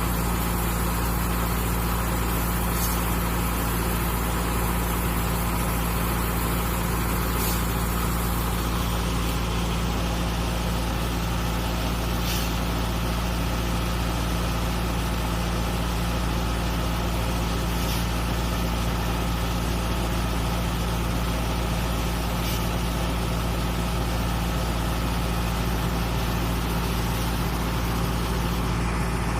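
Combine harvester running steadily, its engine a continuous low drone without let-up, with a few faint clicks.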